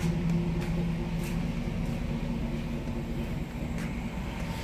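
Steady low mechanical hum from the Hummer H2, with a few faint footsteps on concrete.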